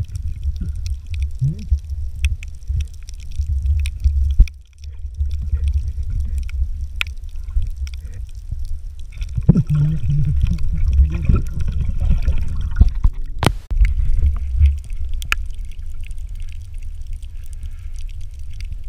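Underwater noise heard through a moving camera: a low, uneven rumble of water moving around it, with scattered sharp clicks.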